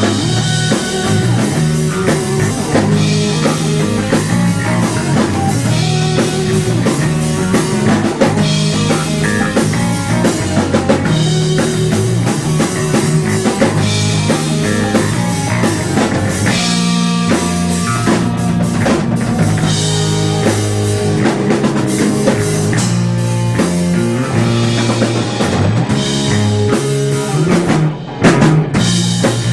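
Rock music played by a band with drum kit and guitar, with a brief drop-out near the end.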